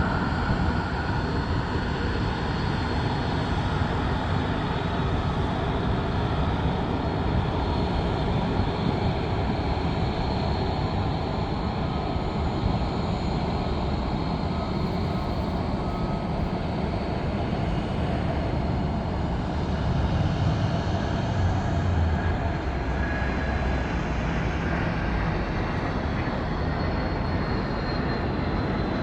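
Dassault Falcon 2000 business jet's twin engines running at takeoff power: a continuous jet noise with a thin high whine, louder about two-thirds of the way in, the whine's pitch falling slightly near the end.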